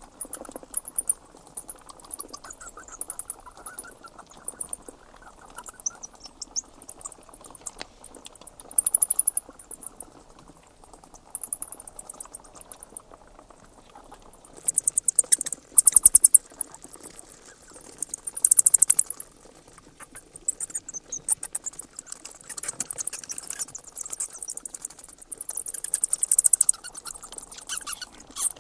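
Bats squeaking and chittering: quick trains of very high-pitched chirps coming in bursts every second or two, over a steady low rustling murmur.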